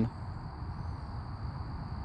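Quiet outdoor background: a steady low rumble with no distinct events.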